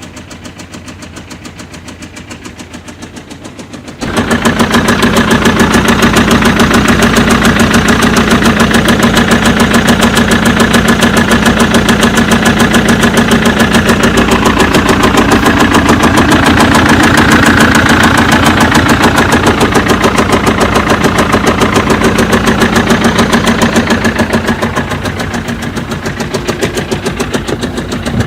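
BMW 1 Series 2.0 L diesel engine running with a fast, rhythmic tapping knock, the abnormal 'tap tap tap' noise it is being checked for. The sound jumps much louder about four seconds in.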